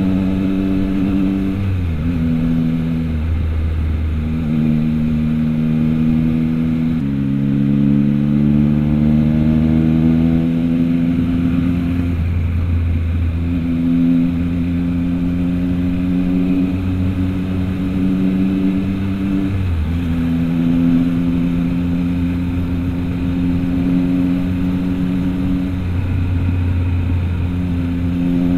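Triumph Trident 660's inline three-cylinder engine through an aftermarket Orion exhaust, running under way. The engine note holds steady for long stretches, dips and recovers a few times as the throttle eases off, and climbs steadily for several seconds from about seven seconds in.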